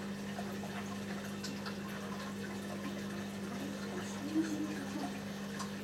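Saltwater aquarium running: a steady low hum with moving water over it and a few faint small ticks.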